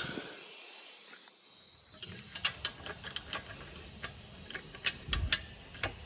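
Light, irregular metal clicks and clinks, starting about two seconds in: a washer and nut being handled and lined up on a wheel hub assembly.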